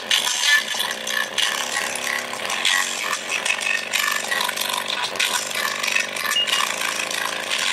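JBL Charge 4 woofer driver running in free air, out of its enclosure, playing a bass-boosted song with the cone moving hard. The output comes out heavily distorted and noisy with little deep bass, the sound of a driver being pushed toward failure.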